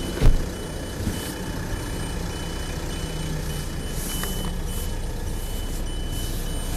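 Electronic beeper giving a high tone that switches on and off, over a low steady rumble. A single thump comes just after the start, with some brief rustling.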